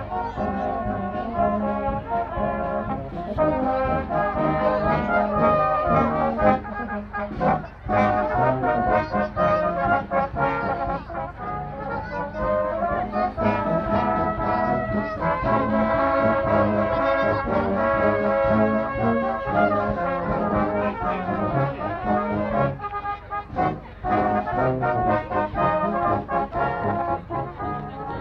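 Brass band playing a piece, with tubas, euphoniums, cornets and trombones sounding together in sustained chords over a bass line. The music breaks off briefly twice.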